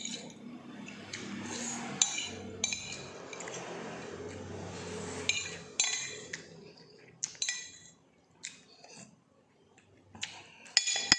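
A metal spoon scraping and clinking against a ceramic plate while noodles are eaten, with soft slurping. There are sharp ringing clinks about six seconds in, again a second later, and near the end.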